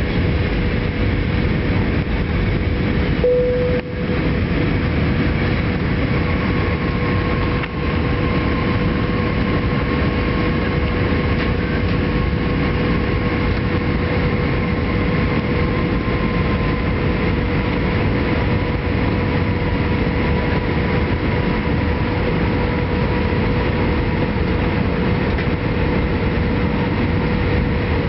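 Airliner cabin noise on the approach for landing: a steady rumble of engines and airflow, with a steady whine and a higher whine that slowly sinks a little in pitch.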